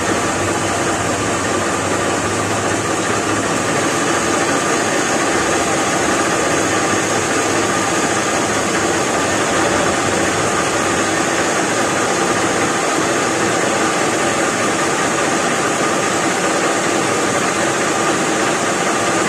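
Metal lathe running at a steady speed, its chuck spinning: an even mechanical hum and hiss that holds without change.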